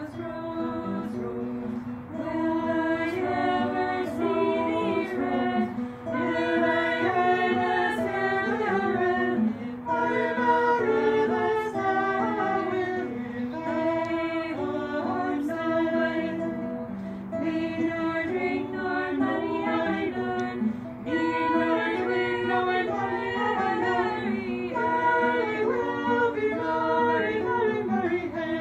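A small choir of women singing a sixteenth-century English folk song together, accompanied on acoustic guitar, in phrases with short pauses between them.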